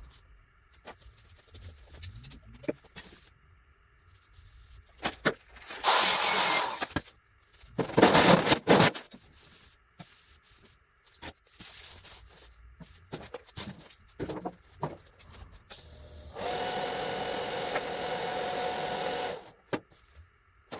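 TIG welding a steel roof insert: a steady arc buzz for about three seconds near the end as a short bead is laid on the sheet-metal seam. Before it, scattered clicks and handling noises, and two loud rushing noises of about a second each.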